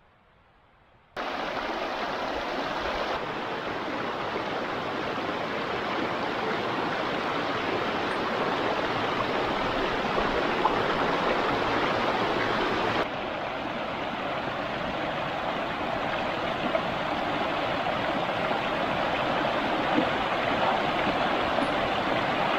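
Dunnfield Creek rushing over rocks, running high with winter snowmelt: a steady rush of water that cuts in suddenly about a second in, after near silence.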